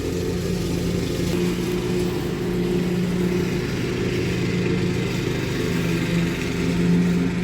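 Wind blowing over a steady low hum from a running motor.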